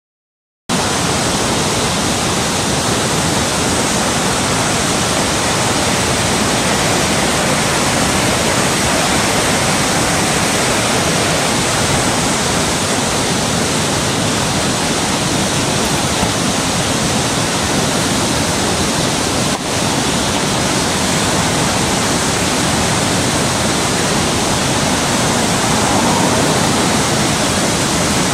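Whitewater river in spate rushing through rapids: a loud, steady rush of water that cuts in abruptly under a second in.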